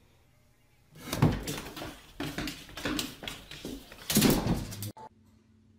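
A run of loud, harsh animal calls, starting about a second in and lasting about four seconds, cutting off abruptly.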